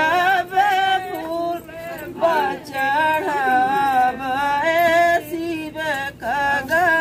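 A voice singing a slow folk song, holding long notes that waver in pitch, with short breaths between phrases.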